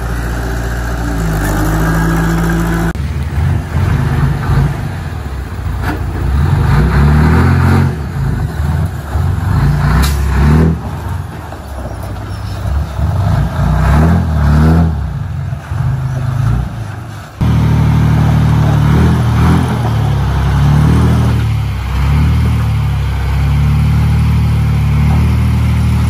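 Bulldozer's heavy diesel engine working, its pitch and loudness rising and falling as it takes load. The sound changes abruptly twice, about three seconds in and again about two-thirds of the way through.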